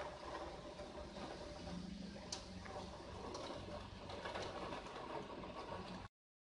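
Rain pattering on a window pane, heard from behind the glass: a steady hiss dotted with many small drop hits. It cuts off suddenly near the end.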